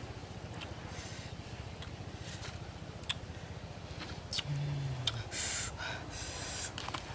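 A person eating grilled fish: sharp lip-smacking clicks and chewing, with a short low "mm" hum about four and a half seconds in, followed by louder crunching chews. A steady low hum runs underneath.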